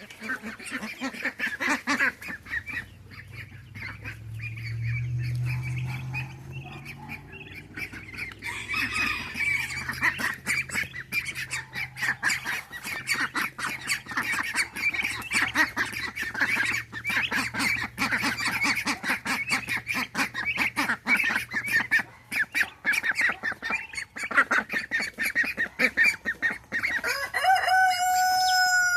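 Mixed flock of ducks and bantam chickens calling over each other in quick squawks, quacks and clucks, with one longer pitched call near the end. A low hum runs underneath for much of the first two-thirds.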